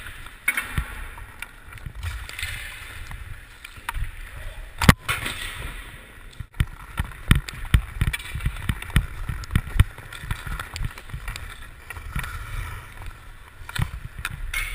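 Hockey skates carving and scraping on the ice, with the stick blade tapping the puck as it is stickhandled, and a single sharp crack about five seconds in.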